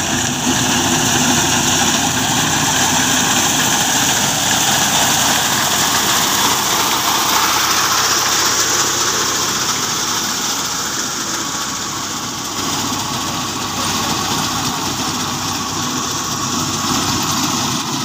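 Fiat tractor's diesel engine running steadily as it pulls a reaper through standing wheat.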